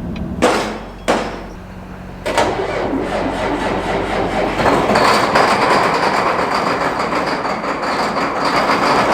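Two sharp knocks, then from about two seconds in a vehicle on the move, running loud with a heavy rattling clatter that builds and holds.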